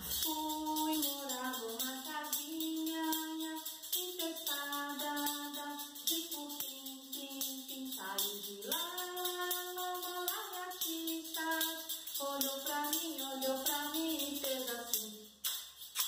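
A woman singing a Portuguese children's song about a gecko and a house, in held melodic lines, over a steady jingling tambourine-like beat.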